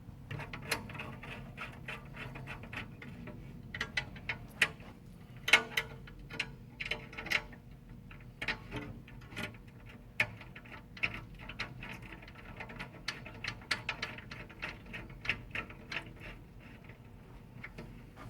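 Irregular light clicks and ticks of small metal hardware as a display-case connector is fitted and its truss screws are tightened by hand, a few clicks sharper than the rest.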